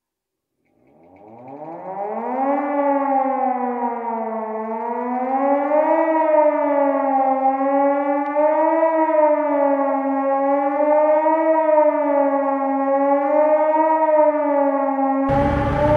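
A siren winds up from a low pitch to a high one over about two seconds. It then wails slowly up and down and cuts off suddenly near the end.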